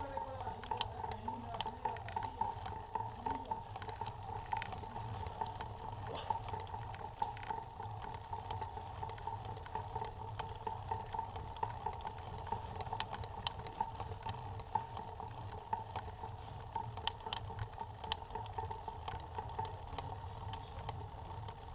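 Mountain bike riding over a paved village street: steady rolling noise and rumble from the tyres and bike, with a few sharp rattles and clicks from bumps.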